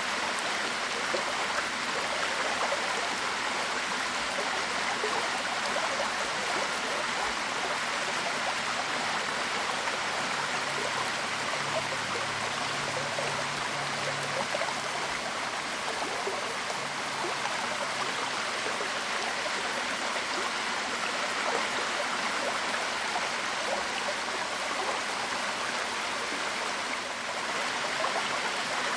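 Waterfall: a steady rush of falling water, with the most energy in the middle and upper range.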